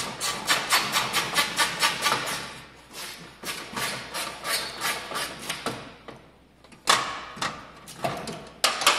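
Hand-tool work on the Jeep CJ7's body metal: a fast run of sharp knocks and scrapes, about four or five a second, then a pause and a few single louder knocks near the end.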